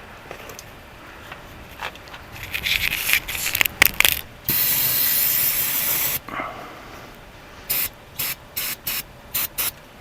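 Aerosol spray cleaner being sprayed onto a wiring connector: one long hiss of under two seconds about halfway in, then six short bursts near the end. Before the spray there is rustling and clicking of handling.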